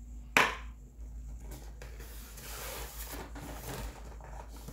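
Cardboard shipping box being opened by hand. One sharp, loud sound comes about half a second in, then a run of rustling and scraping of cardboard and packing.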